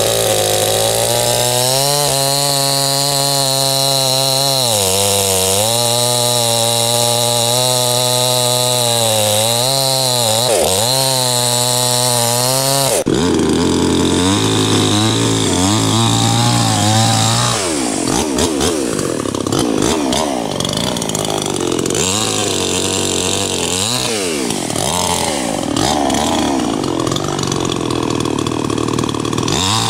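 Anbull 52cc two-stroke gas chainsaw running at high revs as it cuts into the base of an ash trunk, the engine sagging briefly under load and picking up again. About halfway through the sound jumps, and from there the revs rise and fall again and again as the cut goes on.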